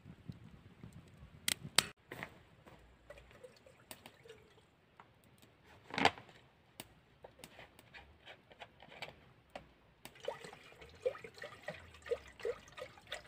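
Water dripping and trickling, among scattered clicks and knocks of things being handled; one sharper knock comes about six seconds in, and the trickling grows busier near the end.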